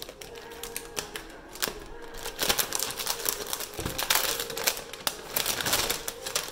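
Gift packaging rustling and crackling in the hands as a parcel is opened, a run of quick crinkles and clicks that grows busier about two seconds in.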